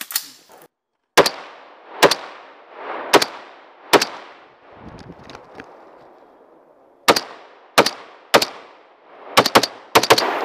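Semi-automatic rifle with a ported muzzle brake firing about a dozen single shots at paper targets, each crack followed by a short echo. The shots come in uneven groups about a second apart, with a lull of a few seconds midway and two quick pairs near the end.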